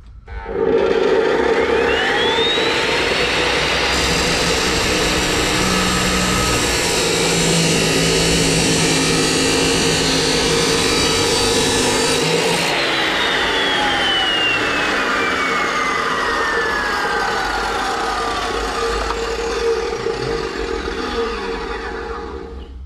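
Yato YT-82181 abrasive chop saw with a DeWalt cutting disc, starting up with a whine that rises over a few seconds as the soft-start motor comes up to speed, then grinding through a steel rectangular tube. About 12 seconds in it is switched off and the motor winds down with a long falling whine.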